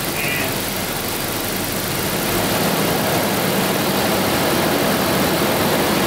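1992 Daimler Double Six's Jaguar V12 engine idling steadily, warmed up to operating temperature.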